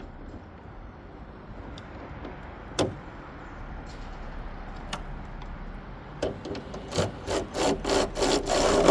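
Socket wrench ratcheting a hood hinge bolt in, a quick run of rasping back-and-forth strokes building over the last three seconds, after a couple of single metal clicks.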